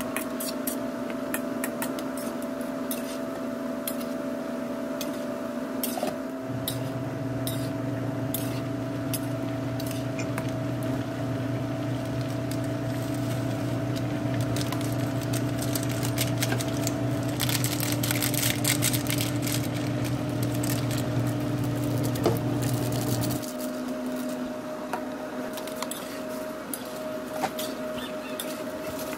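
Chicken pieces sizzling and crackling in a hot pan. A steady electrical hum runs underneath, with a deeper layer that comes on about six seconds in and cuts off suddenly about two-thirds of the way through.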